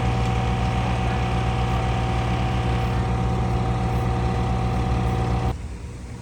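A steady, loud mechanical drone with a deep hum and a thin steady tone above it, which cuts off abruptly about five and a half seconds in.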